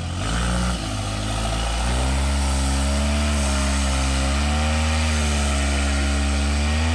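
Off-road trial vehicle's engine running under throttle. Its pitch and loudness climb about two seconds in, then rise and fall slowly as the revs are worked.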